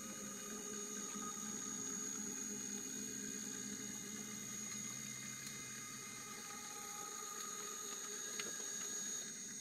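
Stepper motors of a Sainsmart 3018 PROVer desktop CNC router driving its axes in a homing move: a steady high whine with lower hum tones, after the motors have wound up to speed. A faint click comes near the end.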